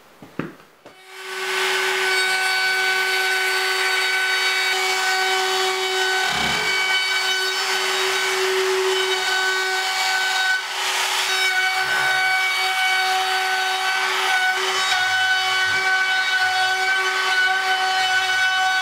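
Compact trim router starting up about a second in, then running at full speed with a steady high whine as it cuts along the edge of the wood.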